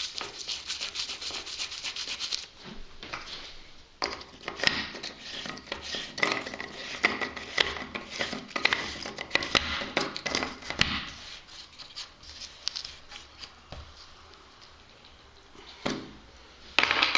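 Plastic shower-waste fitting being screwed together by hand: plastic parts rubbing and clicking, in two busy spells with a quieter stretch near the end.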